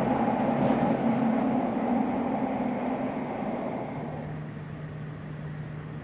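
Subway train running, heard from inside the passenger car: a dense rumble of wheels and running gear. It grows quieter about four seconds in, leaving a steady low hum.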